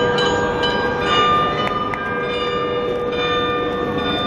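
The Munich Rathaus-Glockenspiel's 43 tuned bells chiming a tune: bells of different pitches struck one after another, each ringing on and overlapping the next.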